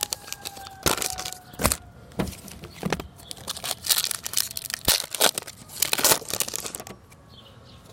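Baseball card pack wrapper crinkling and tearing while cards are handled, heard as a series of short crackly rustles.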